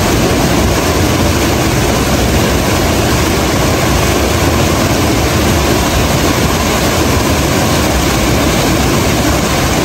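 Small river waterfall pouring over rocks into a pool: a loud, steady rush of whitewater.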